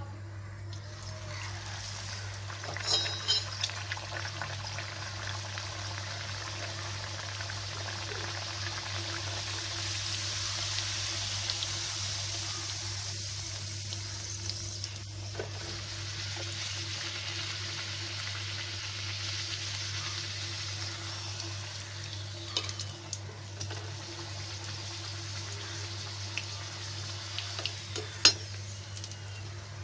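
A puri deep-frying in hot mustard oil in a kadhai: a steady sizzle that swells after the dough goes in and is fullest about ten seconds in. A few sharp clinks of a slotted spoon against the pan, the loudest near the end as the puffed puri is lifted out.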